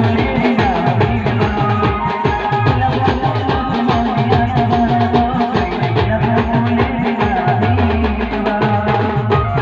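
Band music with no singing: fast, dense drumming under a held melody line.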